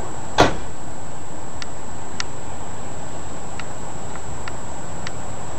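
Steady background hiss with a faint high, steady whine. One sharp knock comes about half a second in, then about half a dozen faint short ticks.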